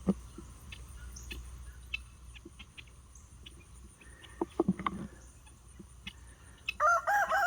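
A rooster starts crowing near the end, a loud, drawn-out call held on one pitch. Before it come only faint scattered clicks and rustles over a low, steady background.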